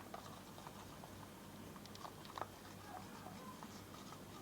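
Spoon mixing foam beads into sticky slime in a bowl: faint squelches and small scattered clicks, one a little louder about two seconds in.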